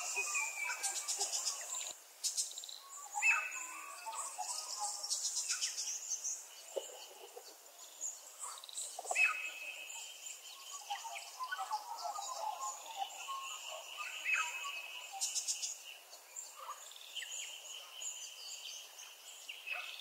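Several songbirds chirping and trilling together: overlapping high whistled notes and rapid pulsed trills.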